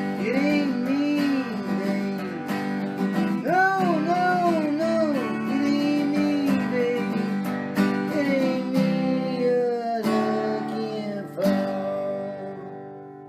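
Acoustic guitar strummed under a wavering lead melody, ending on a final strummed chord about eleven seconds in that rings out and fades away.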